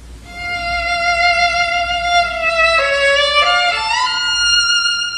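Solo violin playing a slow melody in long held notes that step between pitches, with a slide up into a higher note about four seconds in.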